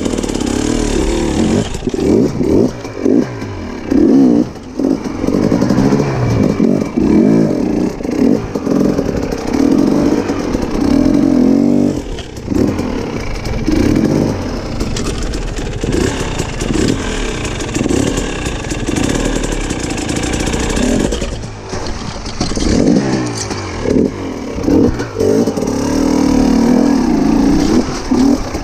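Dirt bike engine revving up and down over and over, with repeated throttle blips and brief drops in power as it is ridden over rough off-road ground.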